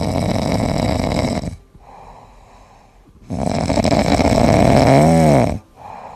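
A sleeping cat snoring: two long, loud snores of about two seconds each, with softer breathing between. The second snore ends with a brief whistle-like tone that rises and falls.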